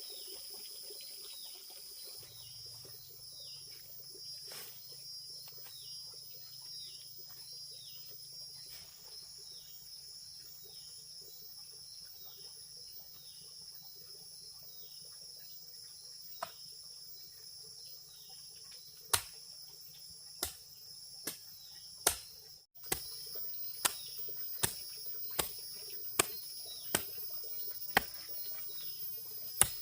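Insects drone steadily, with short falling chirps repeating about once a second. In the second half about a dozen sharp knocks come roughly one a second; they are the loudest sounds.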